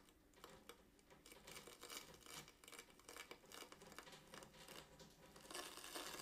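Faint scratchy rustling, near silence, that swells briefly into a louder hiss near the end.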